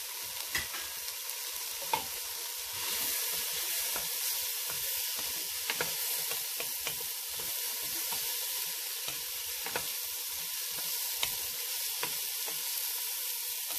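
Diced cauliflower, carrot, onion and tomato sizzling in hot oil in a pot as a wooden spatula stirs them: a steady frying hiss, a little louder about three seconds in, with scattered sharp knocks of the spatula against the pot.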